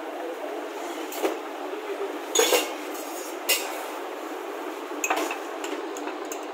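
A metal spoon clinking against glass falooda mugs and the metal counter: several sharp clinks, the loudest a quick double about two and a half seconds in, over steady background noise.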